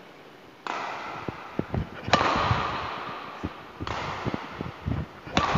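Badminton rackets striking a shuttlecock in a rally of flick smashes and returns: about four sharp hits roughly a second and a half apart, each ringing on in the hall, with footsteps thudding on the court between them.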